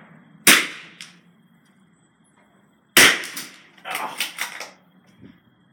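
Two .22 LR rifle shots about two and a half seconds apart, each a single sharp crack, the first about half a second in. After the second shot come several quicker, fainter clicks and knocks.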